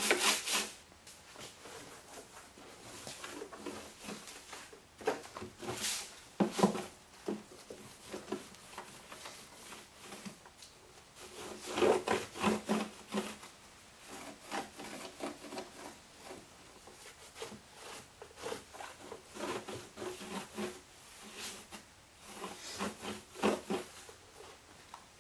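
Scrubbing on a snowmobile's aluminum tunnel: quick rubbing strokes, about four a second, stop just after the start, then come back in scattered bouts as a rag is wiped back and forth over the metal.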